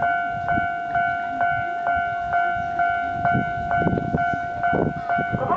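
Japanese railway level-crossing warning alarm ringing its two-tone electronic 'kan-kan', struck about twice a second and fading between strikes. From about halfway, a train's clattering runs underneath it.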